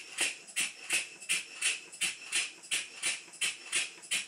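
Stuart model beam engine turning over slowly on compressed air, chuffing in an even rhythm of about three puffs a second over a faint hiss of air. Its valve timing is badly late, with air admitted well after top dead centre.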